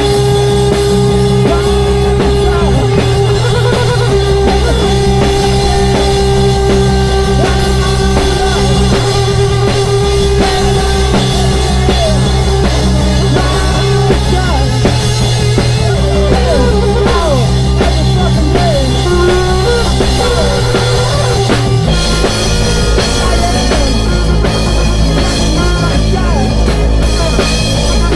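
Live band improvising rock music with a drum kit, a long held note and wavering lines above it. The low part changes pattern about 22 seconds in.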